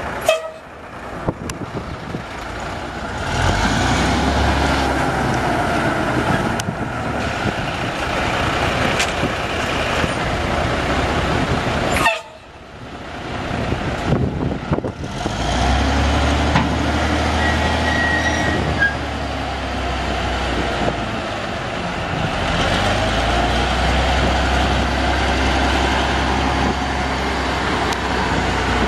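The 1987 Ford LT8000 dump truck's Cummins 7.8-litre inline-six turbo diesel running, with a steady low rumble. There is a sharp, loud sound just after the start. About twelve seconds in the sound breaks off briefly, and from about fifteen seconds in the low rumble is stronger.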